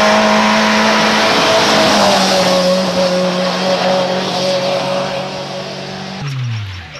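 Racing car engine held at high revs with heavy tyre noise, then the engine note falls sharply about a second before the end as the driver lifts off.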